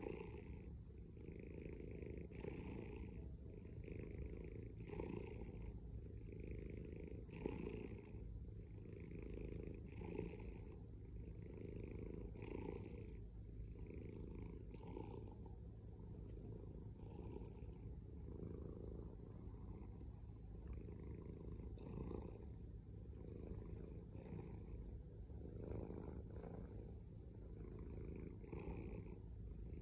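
Domestic cat purring continuously while being stroked on the head, the purr swelling and easing with each breath about once every second or so.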